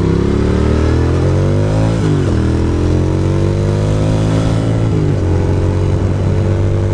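Ducati Monster's V-twin engine accelerating: the revs climb, drop at an upshift about two seconds in, climb again, and drop at a second upshift about five seconds in.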